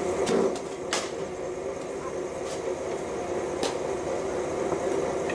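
A few sharp knocks of a cricket ball against bat and net during net practice, spread over a few seconds, over a steady mechanical hum.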